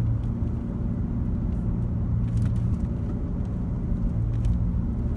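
Worn front wheel hub bearing on a 2004 Chevy Trailblazer droning while driving, a low steady hum over road noise heard inside the cabin. The hum eases for about a second past the middle and then comes back, its tone shifting as the wheel is nudged left and right, the check that points to a bad hub bearing.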